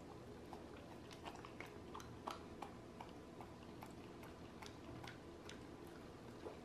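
Shiba Inu licking and chewing a treat held to its mouth: faint, irregular wet clicks and mouth smacks, a few a second.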